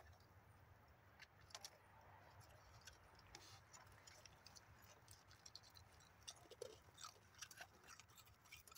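Raccoon chewing dry breakfast cereal: faint, short crunches and clicks, coming more often in the second half.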